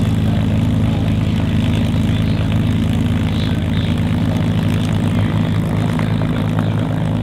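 P-51 Mustang's Merlin V12 engine idling steadily as the fighter taxis, propeller turning.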